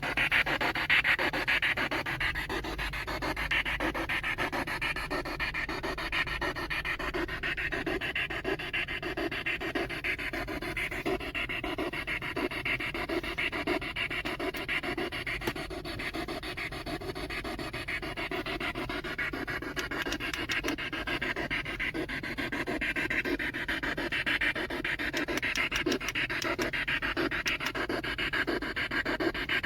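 Ghost-hunting spirit box sweeping through radio stations, giving a continuous fast, choppy hiss of static with no words coming through.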